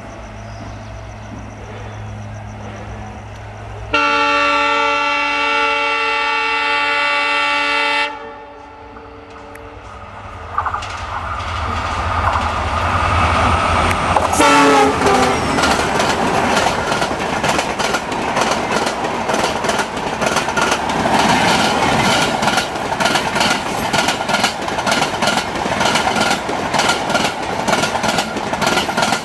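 EMD WDP4D diesel locomotive, with its two-stroke EMD engine, approaching at speed. It sounds a multi-note horn held for about four seconds, starting about four seconds in, then its engine grows louder and drops in pitch as it passes about halfway through. Its express coaches follow, wheels clattering over the rail joints in a fast, steady rhythm.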